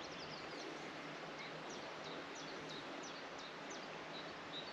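Songbirds chirping: a string of quick, high notes that slide downward, then a thin note repeated several times near the end, over a steady outdoor hiss.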